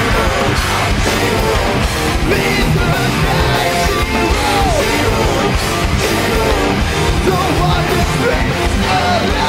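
Live metal band playing loud: distorted electric guitars, bass and drums in a dense, driving passage, with short gliding lead lines over the top.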